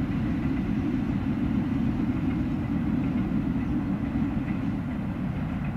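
Passenger train running past in the distance: a steady low rumble.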